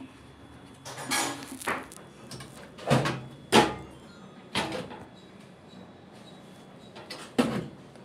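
About six sharp plastic knocks and clatters as the front control panel of an LG front-loading washing machine is worked loose and pulled away from the cabinet. The loudest come about three seconds in, and there is a quieter stretch before a last knock near the end.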